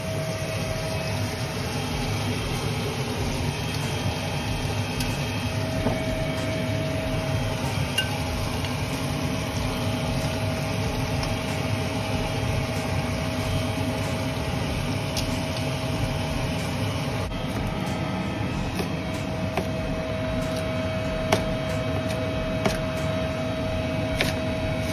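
A steady machine-like hum with a thin constant whine that fades in and out, and occasional faint clicks.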